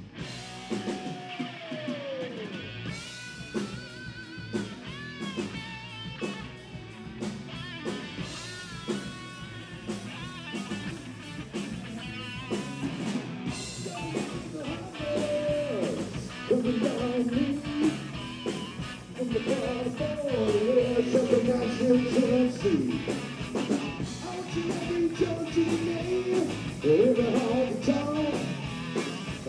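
Live rock band playing a guitar-led number with a steady beat, getting louder about halfway through.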